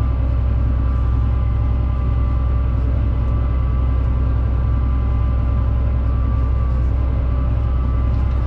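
Fendt 936 tractor running steadily under load while pulling a seed drill across the field, heard from the cab: a constant deep engine drone with a steady whine above it.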